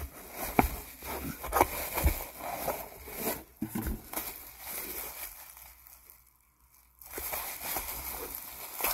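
Packing material crinkling and tearing as it is handled and pulled apart, with irregular taps and scrapes. The handling stops for about two seconds near the middle, then the rustling resumes.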